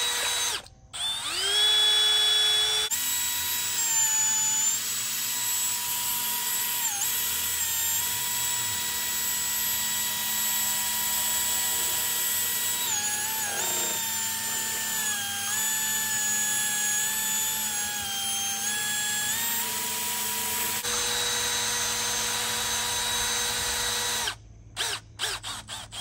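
Cordless drill driving a paddle mixer through a 5-gallon bucket of Fluid Film undercoating. The motor spins up with a rising whine about a second in and then runs steadily, its pitch dipping now and then. It stops a couple of seconds before the end.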